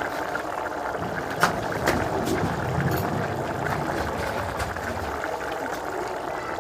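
Open wood fire burning under a cooking pot, a steady hiss with a low rumble in the middle and a few sharp clicks about one and a half, two and three seconds in.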